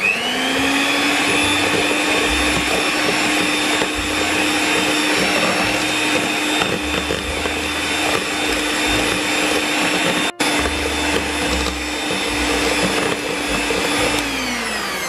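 Electric hand mixer running steadily, its beaters churning through creamed margarine and egg yolk in a stainless steel bowl. The motor hum rises in pitch as it starts, cuts out for a moment about ten seconds in, and falls as it winds down near the end.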